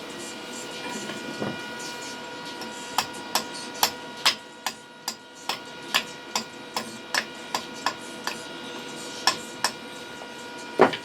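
Sharp metallic taps on steel, about two to three a second for several seconds, with one louder knock near the end, over a steady high hum. The work is welding up a drilled hole in a VAZ-2109 strut.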